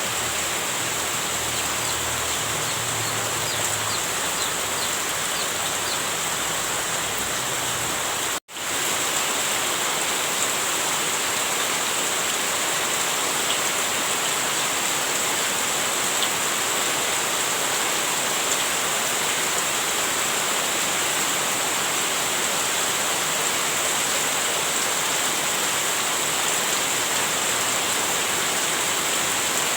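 Heavy rain falling, a steady dense hiss. About eight seconds in it cuts out abruptly for an instant and comes straight back, with a low rumble heard before the break gone afterwards.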